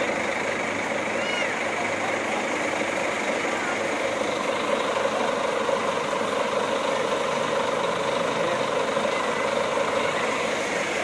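Steady heavy rain falling together with the idling of a coach bus's rear-mounted diesel engine, an even unbroken noise.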